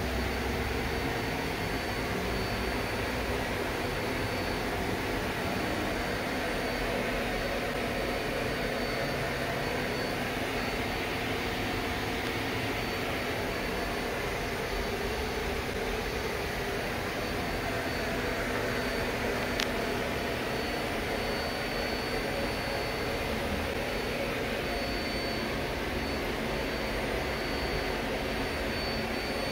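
Steady machine-shop background noise: an even mechanical hum and hiss with a faint high-pitched whine, and one small click about two-thirds of the way through.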